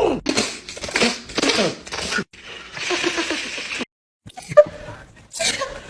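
A person sneezing several times in a row, short voiced bursts with a gliding pitch and noisy blasts of breath, during a bad seasonal allergy attack. A sharp click, the loudest sound, comes about three-quarters of the way through.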